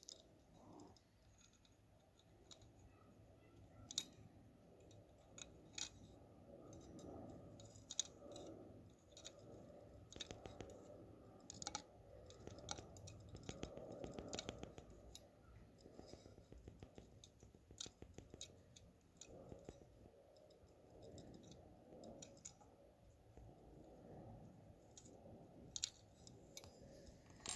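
Faint, irregular small clicks and light handling rustle around an open pocket watch movement, with a small tool worked near the balance wheel.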